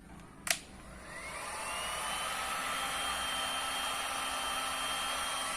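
Hair dryer switched on with a click, its motor whine rising in pitch for about a second and a half, then running steadily with a rush of blown air.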